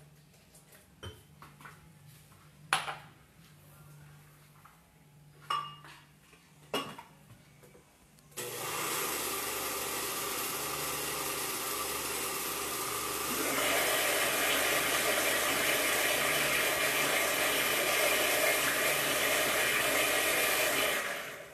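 Countertop blender running, mixing crepe batter of egg, milk and flour. It starts about a third of the way in, gets louder a few seconds later and switches off near the end. Before it start a few light knocks are heard as the jar and lid are handled.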